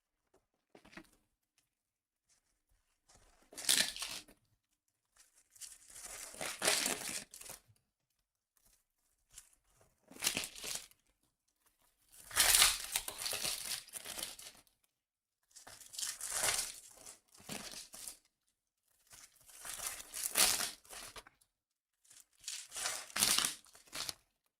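Plastic packaging being torn and crinkled by hand, in about seven bursts of a second or two each with short pauses between.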